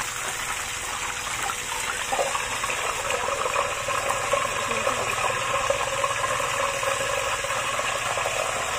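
Whole lembat catfish frying in hot oil in a wok, a steady crackling sizzle that grows a little louder about two seconds in.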